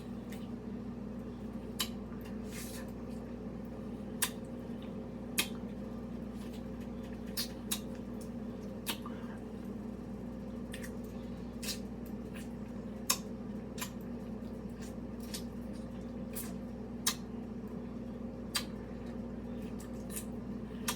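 Person eating a ripe mango: sharp, wet mouth clicks and squishy smacks at irregular intervals, about one every second or so, over a steady low hum.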